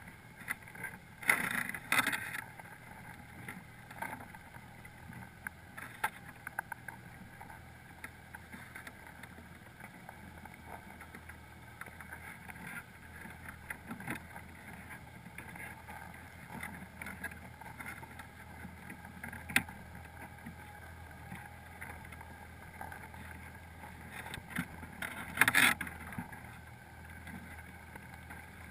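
Muffled underwater sound through a camera housing inside a crab pot: Dungeness crabs shifting against the pot and housing make scattered clicks and knocks, with louder clusters about a second in and again near the end, over a steady low hum.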